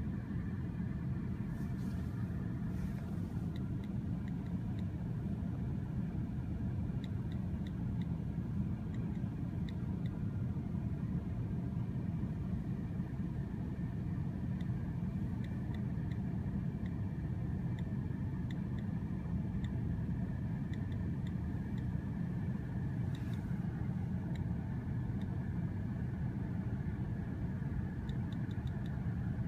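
A car's engine idling, a steady low rumble heard from inside the cabin, with a few faint high ticks.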